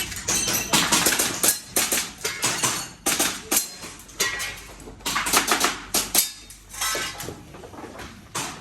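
Airsoft pistol firing in quick strings of sharp shots, several shots per string with short pauses between them, mixed with clattery metallic clicks.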